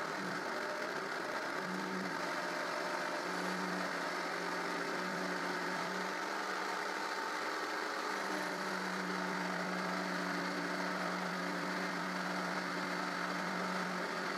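Jigsaw mounted under a homemade jigsaw table, running steadily while ripping a long pine board along the grain. The blade works hard and slowly through the rip cut, with a low hum that fades and returns a few times.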